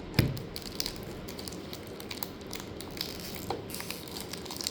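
Hands opening the plastic cover of a cube's packaging. There is a single thump just after the start, then scattered small plastic crinkles and clicks.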